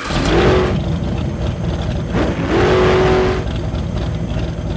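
Car engine revved twice over a steady low rumble, each rev climbing in pitch and then holding. The second rev is longer.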